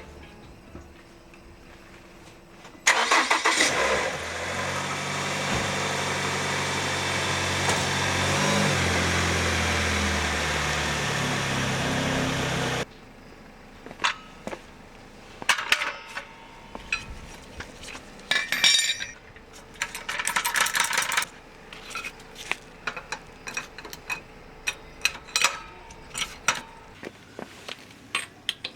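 A car engine starts and runs steadily for about ten seconds, then cuts off suddenly. After that come scattered metallic clinks and knocks.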